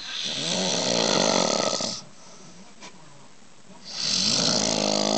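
A man snoring loudly: two long snores of about two seconds each, about two seconds apart.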